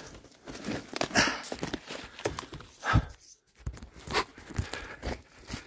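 Footsteps and brush rustling as someone forces a way through thick undergrowth, in irregular bursts with a heavier step about three seconds in.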